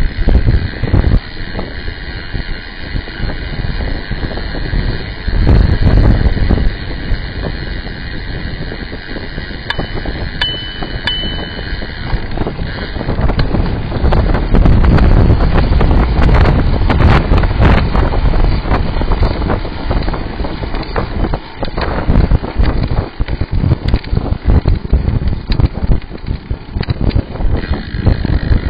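Wind buffeting the microphone of a camera mounted on a moving bicycle: a loud, low rumble that keeps rising and falling in gusts as the bike rides along.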